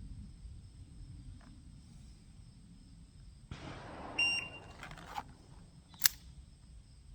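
Electronic shot-timer start beep about four seconds in, followed by rustling and a few sharp metallic clicks as a Ruger New Model Blackhawk single-action revolver is drawn and its hammer cocked for the shot.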